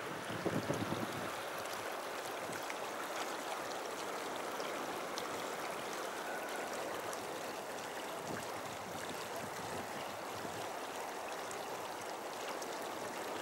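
Muddy floodwater of the overflowing river flowing fast, a steady rushing noise. A few low bumps come about half a second in.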